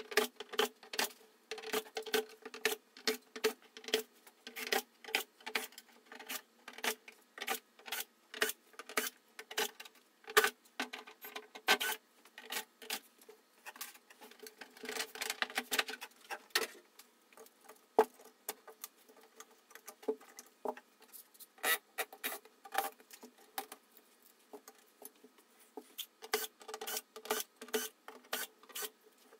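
Cordless drill-driver backing out the screws of a flat-screen TV's back cover and internal boards, its motor running in short spurts among rapid clicks and the clatter of screws and plastic being handled.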